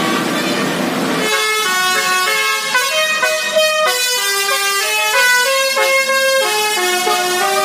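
Tour bus's Basuri telolet musical horn playing a melody: held notes stepping up and down several times a second. It starts about a second in, after a second of general noise.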